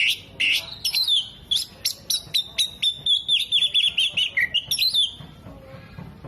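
Oriental magpie-robin (kacer) singing hard: a fast string of sharp chirps and whistled notes that stops abruptly about five seconds in.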